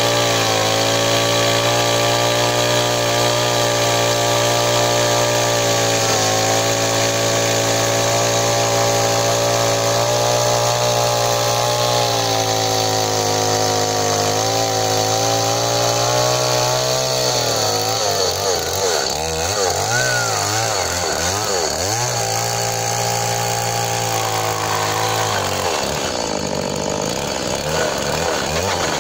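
Stihl two-stroke chainsaw running steadily as it cuts into a block of wood. Past the halfway point its engine pitch wavers rapidly up and down for several seconds.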